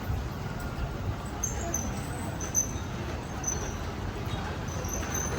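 City street ambience: a steady rumble of road traffic with a faint murmur of voices, and short high-pitched squeaks a few times.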